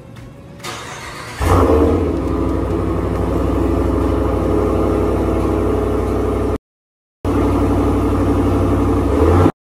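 2020 Ram 1500 cold-started on its factory stock exhaust: the engine catches about a second and a half in and then runs at a steady idle. The sound cuts to silence twice for a moment.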